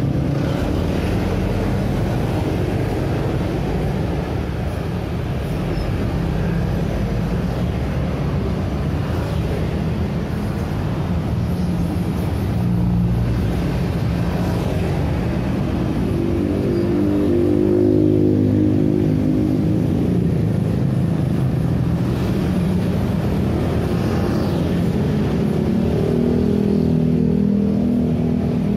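Steady roadside traffic of motorcycles and cars passing close by, a continuous mix of engines and tyre noise. A louder engine swells to a peak about halfway through, and another comes up near the end.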